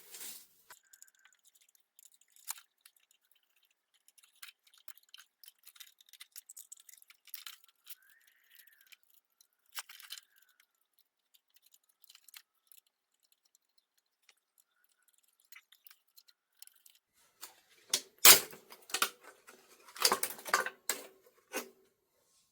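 Faint clicks and scrapes of hand tools and parts being worked on a CRT television's chassis, with a brief squeak at about eight seconds. Near the end, a burst of louder knocks and clattering as parts are handled, with a faint ringing.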